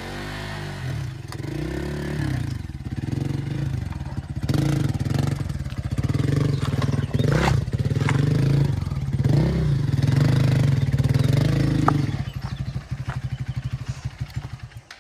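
Hero XPulse enduro motorcycle's single-cylinder engine running and revving up and down repeatedly. About twelve seconds in it drops to a slow, pulsing idle that fades out near the end.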